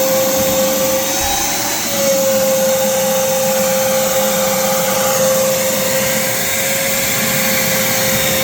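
Vacuum cleaner running steadily with a strong whine. Its pitch dips briefly a little over a second in, then settles back.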